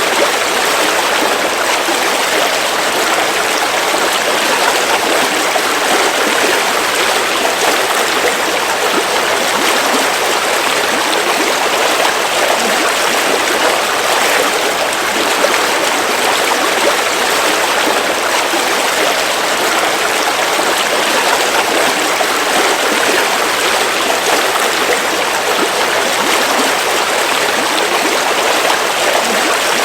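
A river flowing, a steady, continuous rush of water that does not let up.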